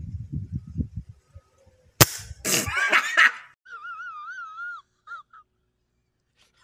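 A single sharp crack of an air rifle shot about two seconds in, after a low rumbling in the first second. It is followed by a wheezing, wavering comedic voice effect from an edited-in meme clip.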